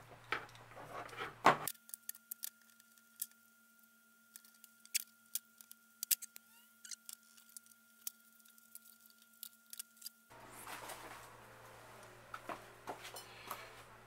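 Small, sharp metal clicks and taps of hand tools on a bicycle rear derailleur as its pivot pins are pushed out and small clips are set down, scattered irregularly.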